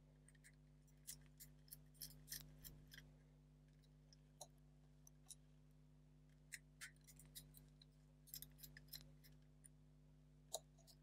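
Faint, irregular small clicks and ticks of a precision screwdriver undoing the screws in a model locomotive's tender, with the model being handled, over a low steady hum.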